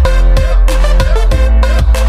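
Dance music with a heavy bass line and a steady beat, about three beats a second.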